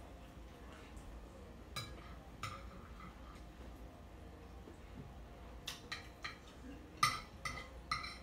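A metal fork clinking and scraping against a plate in a scatter of short, sharp clinks, most of them bunched in the last two and a half seconds.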